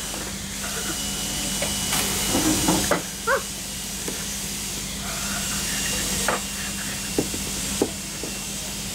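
Steady outdoor background hiss that swells twice, with a steady low hum, a few faint clicks near the end and a brief vocal sound about three seconds in.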